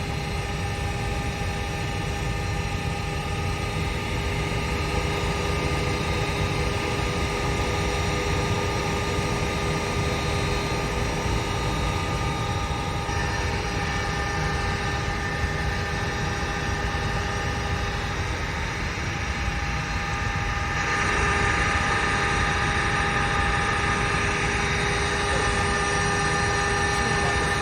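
Thunderstorm downpour with gusty wind: a steady rushing noise with a low rumble, a little louder after about 21 seconds. A few faint steady tones run under it.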